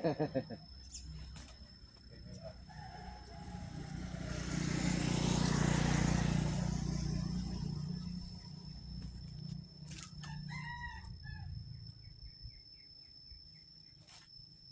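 Outdoor bird calls: a rooster crowing, and a zebra dove's pulsed cooing about ten seconds in. A rush of noise swells and fades over several seconds in the middle.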